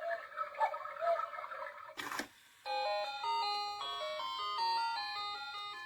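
Battery cuckoo clock striking the hour: the last of its recorded cuckoo calls in the first two seconds, a click, then after a short pause a melody of clear, bell-like notes.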